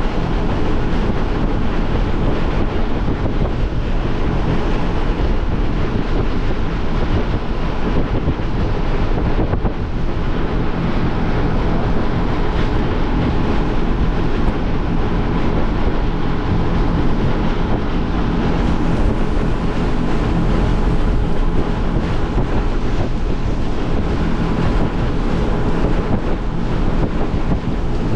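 Motorboat under way on open sea: wind buffeting the microphone over water rushing and slapping along the hull, with a steady engine drone underneath.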